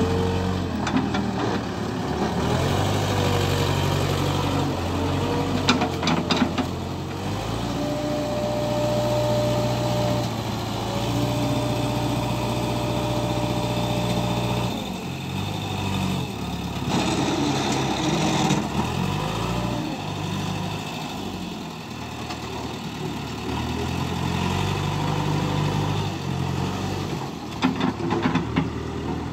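JCB 3DX backhoe loader's diesel engine running under load, its pitch rising and falling as the machine drives and lifts its loader bucket. A steady whine holds for several seconds in the middle, and there are a few sharp clicks about six seconds in and again near the end.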